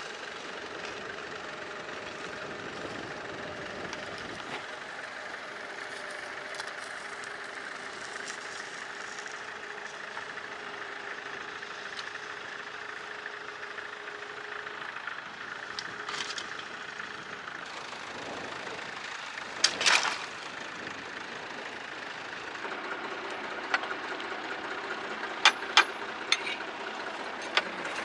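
International W4 tractor with a converted McCormick B275 diesel engine, running steadily under load as it pulls a trailer plough. A loud clatter comes about two-thirds of the way through, and a few sharp knocks near the end.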